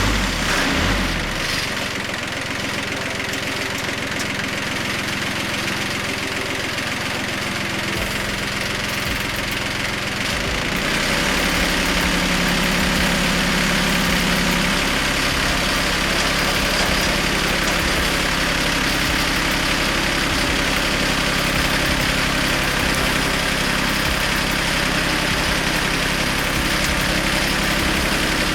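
Farm tractor engine running steadily just after starting, brought up to a higher, louder speed about eleven seconds in and held there.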